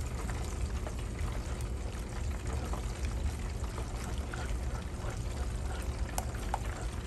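Buffalo sauce of melted butter and hot sauce bubbling in a pot on the stove, a steady sizzling simmer with an occasional light click from the spoon as it is stirred.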